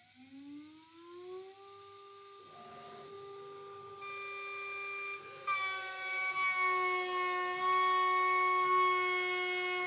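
CNC router spindle whining as it spins up to 24,000 rpm, a rising tone that levels off. Then an 8 mm three-flute chipbreaker end mill starts roughing aluminium about two and a half seconds in. The cut grows louder at about five and a half seconds into a steady high-pitched milling whine.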